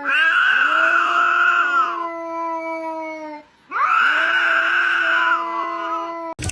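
A pet animal howling: two long drawn-out calls, each about three seconds, the pitch rising at the start and sliding down at the end.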